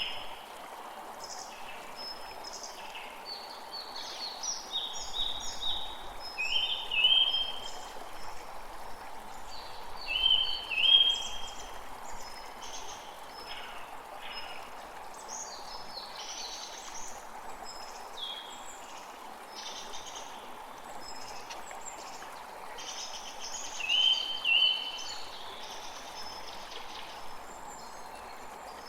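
Creek water flowing steadily, with several songbirds calling and singing over it. One bird's short, loud call stands out, recurring several times: around 6 to 7 seconds in, at about 10 to 11 seconds, and again near 24 seconds.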